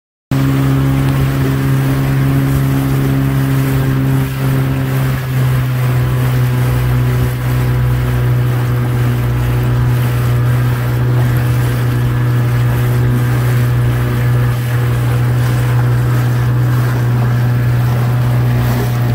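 Outboard motor running at a steady speed, a constant low drone with engine harmonics and some noise above it.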